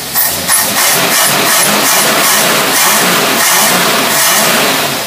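Test engine running on a 1920 Holley single-barrel carburetor, revved by hand at the throttle, its speed rising and falling for a few seconds before dropping back near the end.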